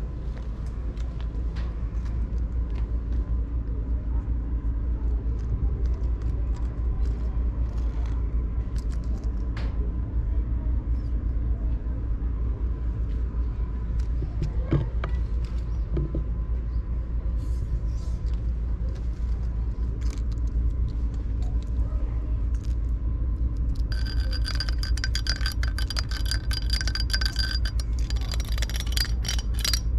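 A steady low rumble with scattered light taps and scrapes. From about three-quarters of the way in, a jingling cat toy: bell-like ringing tones with rapid rattling clicks.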